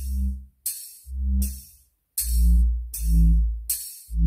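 Bass-heavy electronic music from a bass test track, played through a homemade Bluetooth soundbar with passive bass radiators. Deep bass notes and sharp hissing hits come about once a second, stopping and starting with short silent gaps.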